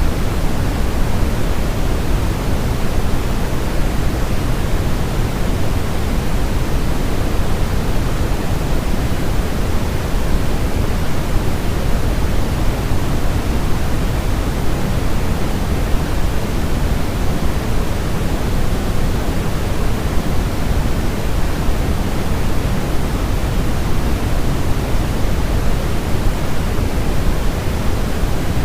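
Steady, unchanging white noise played to soothe a baby, a deep rushing hiss heavier in the low end than the high. It is meant to imitate the sound of the womb.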